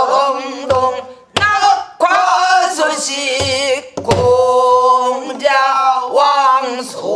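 A woman sings a pansori danga in a wavering voice with heavy vibrato. She is accompanied by a few dull strokes on a buk, the Korean barrel drum, two of them about a second in and two more a little after three seconds.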